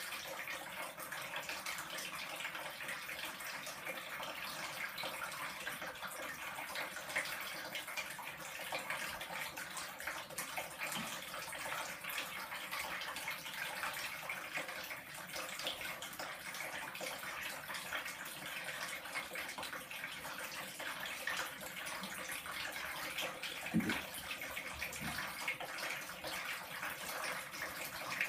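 A thin stream from a bath tap running into a partly filled bathtub: a steady splashing hiss. A brief thump sounds once near the end.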